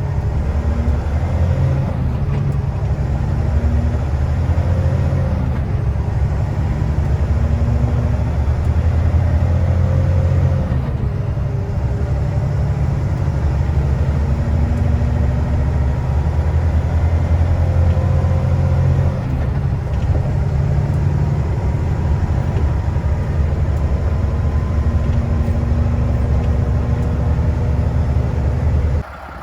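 Heavy snowplow truck's diesel engine running steadily while plowing, a deep rumble whose pitch rises and falls a little. The sound drops away abruptly near the end.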